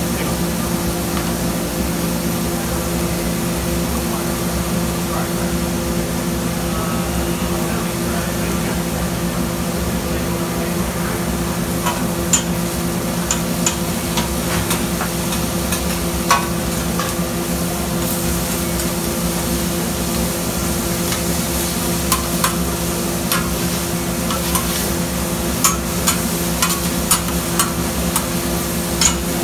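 Shaved steak, onions and peppers sizzling on a flat-top griddle over a steady hum, with sharp clinks and scrapes of metal spatulas against the griddle, coming more often in the last several seconds as the meat is chopped and turned.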